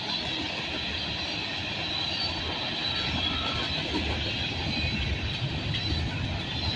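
Norfolk Southern freight train rolling past, a steady rumble of the cars on the rails.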